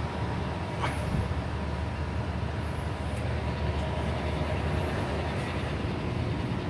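Steady low rumbling background noise with a faint hum, and a single sharp click about a second in.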